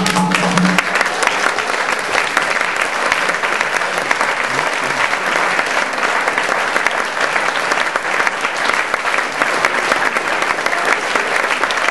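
Audience applauding at a steady level, just after the final held note of the salsa music cuts off less than a second in.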